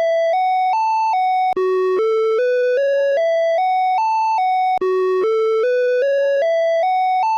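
Electronic emergency alert (EAS) alarm tone, the Åland Islands alert: a single bright electronic tone climbing note by note up a scale, then dropping back one step. The pattern repeats about every three seconds, with a short break between rounds.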